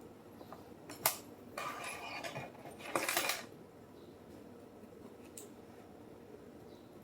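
Metal lock-picking tools clicking and clinking against a Schlage round-body padlock: one sharp click about a second in, then two short bursts of light metallic rattling.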